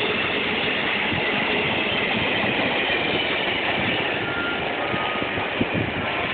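Amtrak Northeast Regional passenger train rolling past and pulling away: a steady rumble and rattle of coach wheels on the rails, easing slightly once the last car goes by about four seconds in.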